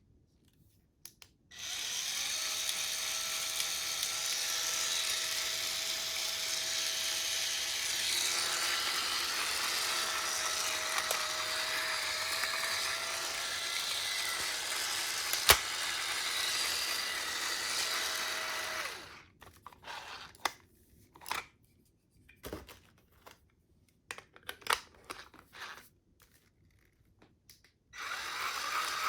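Cordless electric spin scrubber's motor running, spinning its brush head with a steady whir that shifts slightly in pitch about eight seconds in. It switches off a little before two-thirds of the way through. Scattered clicks and knocks of the scrubber being handled follow, and the motor starts again near the end.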